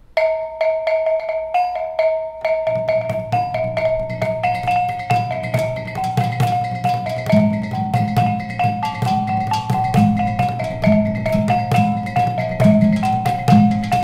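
Kulintangan ensemble of bossed gongs playing a Maranao kulintang piece: the kulintang, a row of small tuned gongs, starts the melody alone, and lower hanging bossed gongs and the dabakan drum join in under it about three seconds in.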